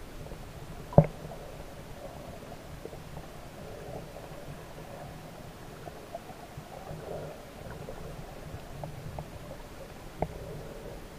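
Muffled underwater sound picked up by a submerged camera: a steady low rumble of moving water, with a sharp click about a second in and another near the end.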